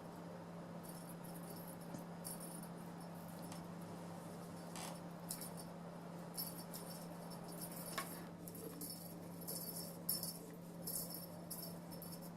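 A kitten's jingling worm toy tinkling in short, irregular bursts as it is batted about, over a steady low hum.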